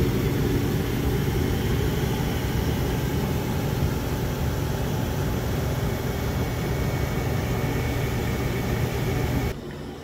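Mr. Heater Big Maxx garage furnace's fan running: a steady whoosh of air over a low hum, cutting off sharply near the end.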